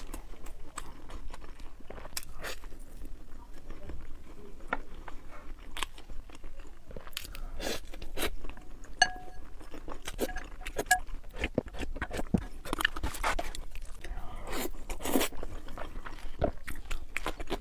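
Close-up eating sounds: crunching, biting and chewing, with irregular sharp crunches throughout.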